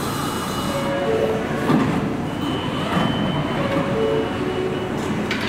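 NYC Subway train standing at an underground platform with its doors open: a steady rumble of the train and station, with two short groups of electronic tones that step down in pitch, about one second and about four seconds in.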